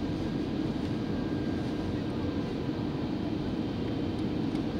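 Steady cabin noise inside an Airbus A321 in flight: an even, low rumble.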